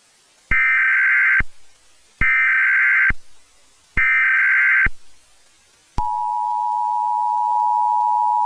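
Emergency Alert System tones: three bursts of screeching SAME header data, each about a second long, then about six seconds in the steady two-tone EAS attention signal begins.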